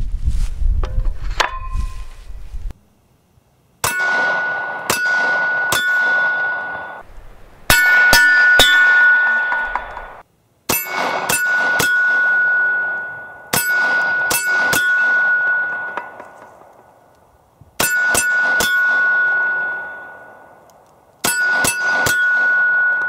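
Bullets striking a steel silhouette target plate: each hit is a sharp clang that leaves the plate ringing at one steady pitch, fading over a second or two. The hits come in six quick strings of two to four. For the first two seconds there are duller knocks and handling noise as the plate is fitted to the wooden stake.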